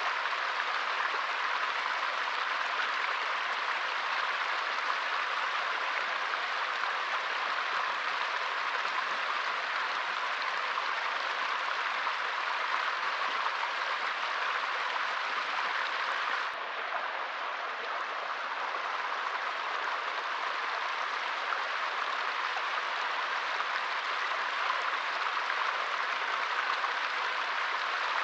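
Small forest stream flowing steadily over stones, an even rushing babble of water. Two thirds of the way through there is a faint click and the sound drops slightly in level.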